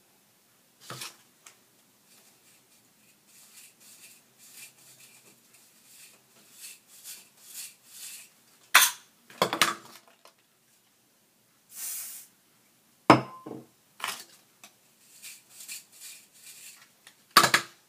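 Round hairbrush backcombing a section of long hair: short, irregular rasping strokes of the bristles, with several sharp clicks and knocks, the loudest about halfway through and just before the end.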